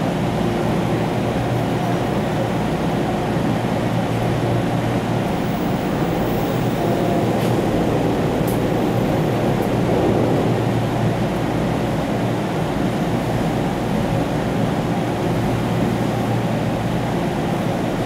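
Steady running noise inside a JR 489 series limited express car travelling along the line, with its wheels on the rails making a continuous rush.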